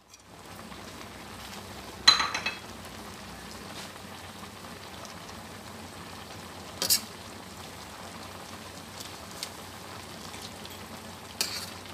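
Creamy shrimp sauce simmering in a stainless steel wok with a steady hiss, while a metal spatula stirs the mozzarella in and clinks against the pan three times; the first clink, about two seconds in, is the loudest and rings briefly.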